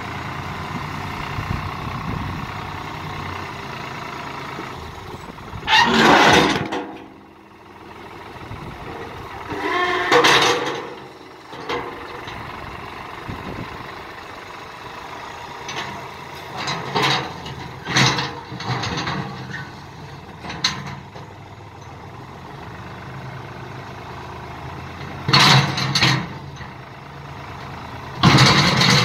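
New Holland tractor's diesel engine running steadily as its front loader works rocks. About six times, loud short bursts of stone scraping and knocking against the steel loader bucket rise above the engine.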